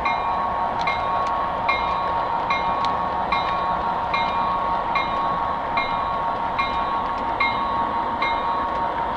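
O-gauge model train running on ScaleTrax track, heard from a car in the train: a steady whine under a sharp metallic click with a short ring a little more than once a second, typical of the wheels passing over the rail joints.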